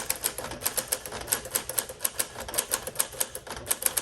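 Typing at a steady pace on a 1959 Smith-Corona Sterling manual portable typewriter: rapid, uneven keystrokes, about six a second, each type bar striking the platen with a sharp clack.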